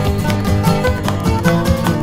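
Background music: an instrumental passage of upbeat folk music with plucked strings over a steady beat.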